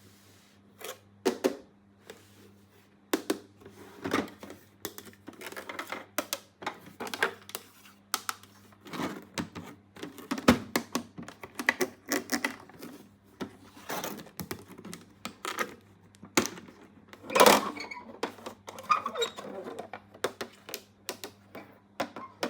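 Hard plastic toy pieces being handled, tapped and clicked together, in a dense run of sharp clicks of varying loudness with one louder knock about three-quarters of the way through.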